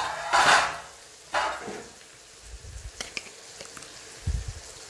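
A wooden spatula stirring frying pork pieces in an aluminium kadai, with two short bursts of scraping and sizzle in the first two seconds, after which the pan falls quieter, with a faint sizzle and a few light knocks.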